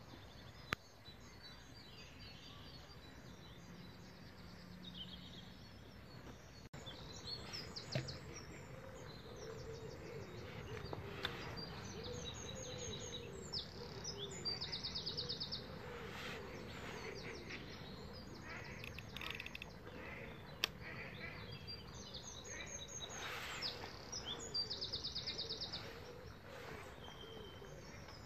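Dawn chorus of several songbirds: many chirps and short whistled phrases, with a fast rattling trill heard twice as the loudest song. A few sharp clicks stand out.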